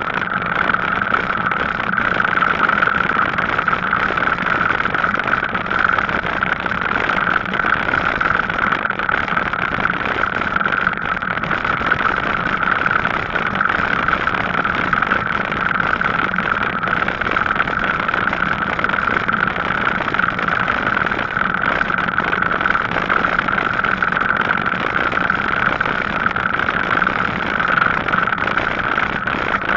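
Steady running sound of a Gazelle Paris C7 e-bike being ridden: an unbroken hum with a constant mid-pitched whine over an even rushing noise, holding level throughout.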